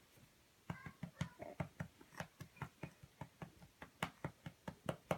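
A hand patting a baby's back to bring up a burp: a steady run of light pats, about five a second, starting a little under a second in.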